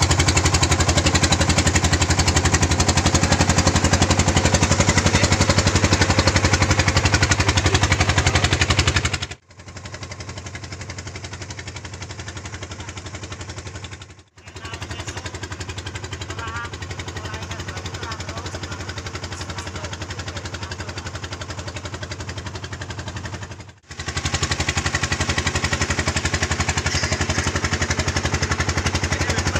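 Fishing boat's engine running steadily with a low, even hum while the boat moves through the sea. The sound cuts out sharply three times, about nine, fourteen and twenty-four seconds in, and is quieter between the first and last cut.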